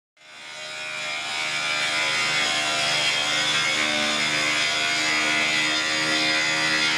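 Trolley-mounted rail grinder's abrasive wheel grinding the steel head of a grooved tram rail, preparing the side-worn rail for weld repair. A steady grinding noise over a motor hum, fading in over the first second.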